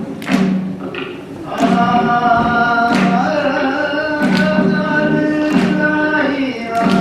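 Voices singing a rice-cake pounding dance song together, the full chorus coming in about a second and a half in, over sharp knocks that keep an even beat about every 1.3 seconds.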